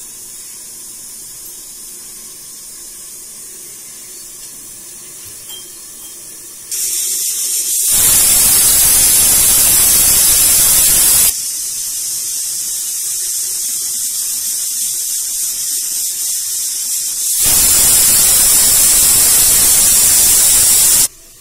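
Pressure cooker whistle going off as it vents steam through its weight valve: a hiss starts about a third of the way in, then two loud blasts of rushing steam of a few seconds each, with a softer hiss between, stopping suddenly just before the end. It is the sign that the cooker has come up to pressure.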